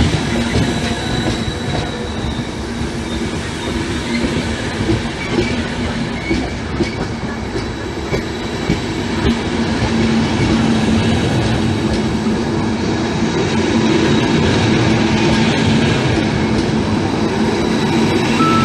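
Passenger train coaches rolling past close by: a steady rumble of steel wheels on the rails, growing louder about halfway through.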